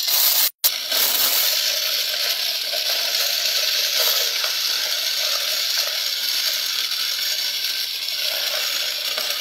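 Small motor of a homemade wooden toy tractor running steadily with its belt drive, a continuous hissing whir. The sound cuts out completely for a moment about half a second in, then carries on unchanged.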